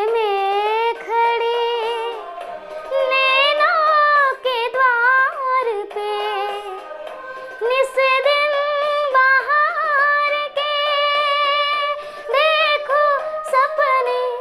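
A young girl singing solo, phrase by phrase, with long held notes, vibrato and quick melodic turns; her voice stops just before the end.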